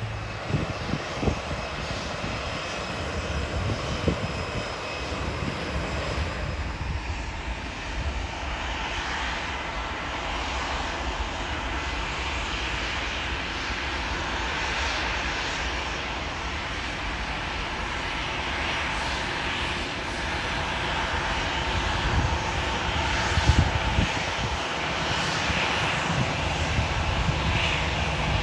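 Aircraft engine noise as a continuous rush with a low rumble, growing a little louder in the last third.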